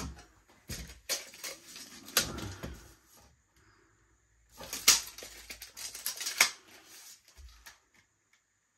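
Clicks, taps and knocks of metal shelf brackets and a tape measure being handled on a wooden shelf board, with two sharper clicks about five and six and a half seconds in.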